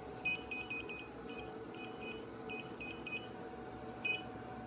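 Touchscreen control panel of a lipo laser slimming machine beeping as its buttons are tapped: about a dozen short, high beeps in an uneven run, then one more near the end, over a steady low hum.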